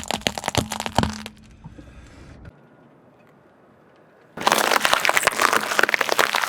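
Car tyre rolling over and crushing crunchy objects: a dense run of sharp cracks and snaps for about the first second, a quiet gap, then a second, louder burst of crackling crunches from about four seconds in.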